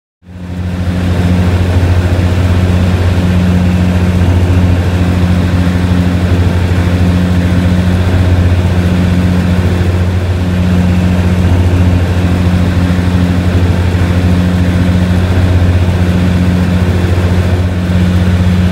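Jabiru J170 light aircraft's four-cylinder Jabiru 2200 engine and propeller running steadily in flight, a loud even drone heard from inside the cabin.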